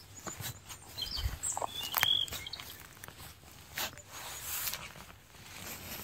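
Footsteps through dry grass and fallen leaves, with irregular crackling and rustling. A sharp high-pitched squeak about two seconds in is the loudest moment.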